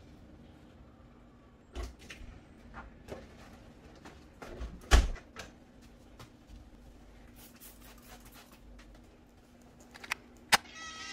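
A wooden room door being swung and shut: a few soft knocks and one louder thud about five seconds in, then two sharp clicks near the end, over a faint steady hum.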